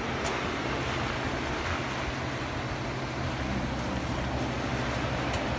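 Steady rush of a rain-swollen creek and its waterfall running high.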